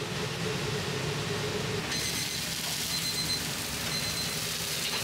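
Gyoza frying in a hot pan over a steady kitchen hum. About two seconds in, a loud sizzle sets in and keeps going, with a faint high whine coming and going.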